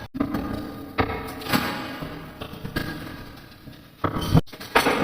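A series of irregular thuds and knocks, about six, each trailing off over about a second, from handling during cooking.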